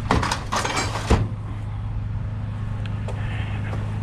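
A pickup truck's engine idling steadily, with a burst of clattering knocks in the first second or so, the loudest just over a second in, as scrap is handled at the truck.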